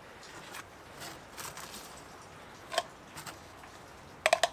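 Cured bait corn being scooped off a paper towel into a small glass jar: faint scraping with light clicks of kernels against the glass, a single click near the middle and a quick run of sharper clicks near the end.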